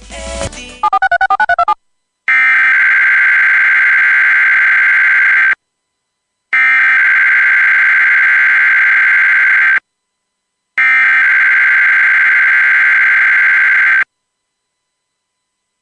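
Emergency Alert System SAME header: three long, identical bursts of shrill digital data tones, each about three seconds long and about a second apart. A brief sweep and a short warbling electronic burst come first.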